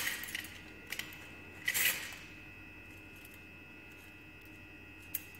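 Glass pipettes clinking against a metal pipette canister as they are drawn out: a few sharp metallic clinks with a light ring, the loudest at the start and another just under two seconds in.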